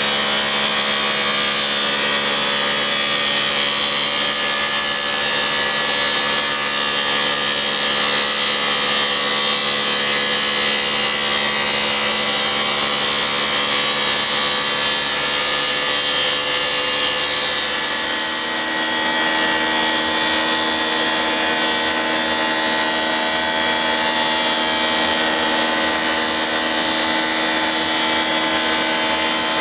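CONTEC Verticalis wall planer milling the surface off a wall: a steady power-tool run of motor and belt-drive whine with a harsh high grinding hiss. About two-thirds of the way through the level dips briefly and the pitch of the whine changes, then it runs steadily again.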